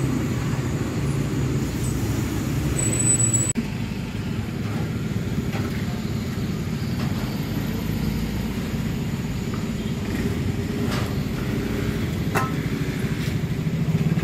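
Steady low rumble of road traffic, with a few faint clicks and knocks now and then.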